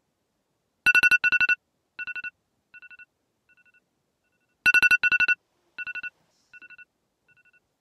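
Electronic ringtone-style alarm beeps: a quick run of four two-pitched pips, each run followed by fading echo-like repeats, sounding twice about four seconds apart.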